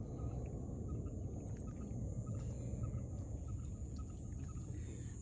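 Night rice-paddy chorus: a steady high-pitched insect trill over a dense low chorus of croaking frogs.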